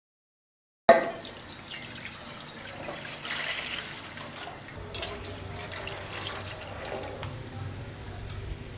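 Liquid pouring and splashing into a vessel, starting suddenly about a second in, with a few light knocks.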